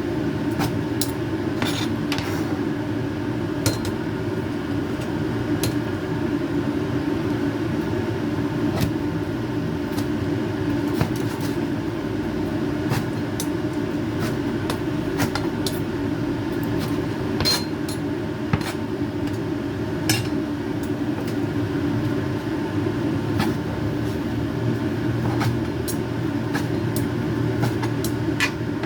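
A steady low mechanical hum with several constant tones, such as a kitchen fan or appliance motor running, with scattered sharp clicks and ticks throughout.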